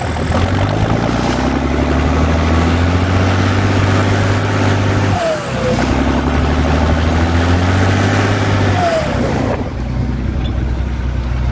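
Fiat 110-90 Turbo tractor's six-cylinder turbodiesel engine working under load while pulling a four-furrow plough. Its note breaks briefly about five seconds in, a short falling whistle sounds twice, and the engine drops to a lower, lighter note near the end.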